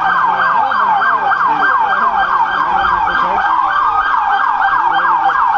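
Police car siren in fast yelp mode, about four falling sweeps a second. A slower rising wail cuts through it about halfway.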